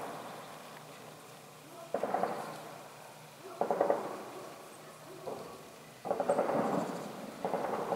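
Distant weapons fire from fighting: four sudden reports, rumbling and echoing, each dying away over about a second, coming one and a half to two and a half seconds apart.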